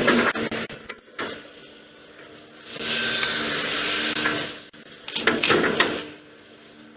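Debris-collection machinery working in bursts, a steady engine hum and whine in the middle, with tree limbs clattering, cracking and snapping as the storm-debris pile is loaded, a cluster of snaps about five seconds in. Heard through a home security camera's microphone, which cuts off the high end.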